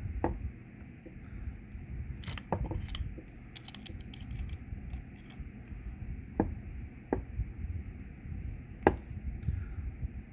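Stainless steel pipe fittings being gripped and tightened by hand with a tool, giving scattered sharp metallic clicks and clinks, about half a dozen, over low handling noise.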